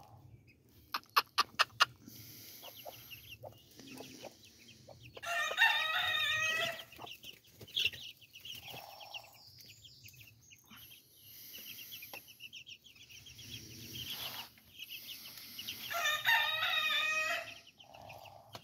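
Chickens in a pen: a rooster crows twice, about five and sixteen seconds in, each crow lasting a second or two, with chicks peeping and hens clucking in between. A quick run of sharp clicks comes about a second in.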